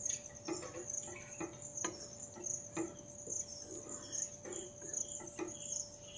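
Arbi curry simmering in a kadhai and being stirred with a wooden spatula: irregular soft clicks, scrapes and plops. Behind it runs a steady high insect chirping that pulses about three times a second.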